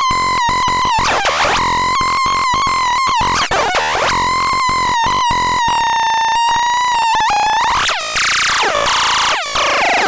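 Homemade Faranosnortron BX 603 experimental synthesizer sounding a buzzy electronic tone, chopped into about four pulses a second, with pitch swoops as its tune and depth knobs are turned. Near the end it breaks into a noisier, squealing warble.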